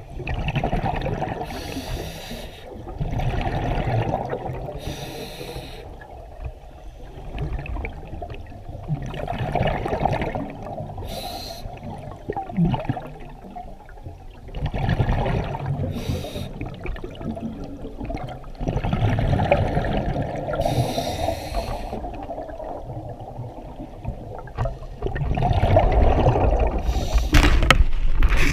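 Scuba regulator breathing heard underwater: the diver's exhaled bubbles gurgle out in a surge every few seconds, with a higher hiss on some breaths.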